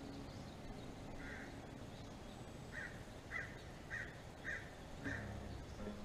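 A crow cawing in the background: a series of about six short, harsh caws roughly half a second apart.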